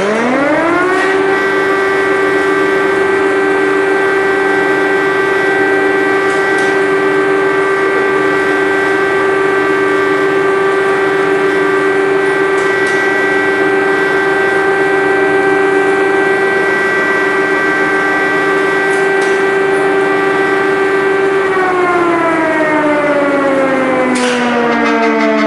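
Air-raid siren winding up over about a second to a steady held tone, holding it for about twenty seconds, then starting to wind down in pitch near the end.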